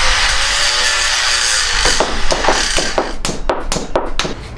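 A steady rasping noise, then from about two seconds in a quick run of sharp knocks, about four a second: a dead blow hammer striking a hydraulic hose fitting.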